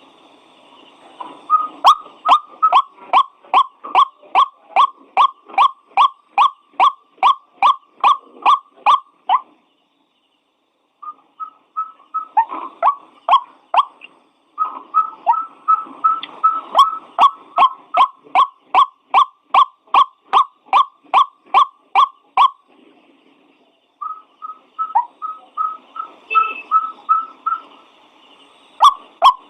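White-breasted waterhen (ruak-ruak) calling: a long series of loud, evenly repeated notes, about two a second, in bouts broken by brief pauses.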